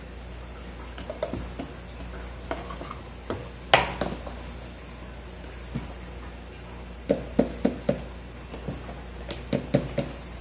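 A plastic measuring cup scooping flour from a plastic tub and tipping it into a mixing bowl gives scattered light knocks and taps. The sharpest comes about a third of the way in, and there is a quick run of taps in the last few seconds.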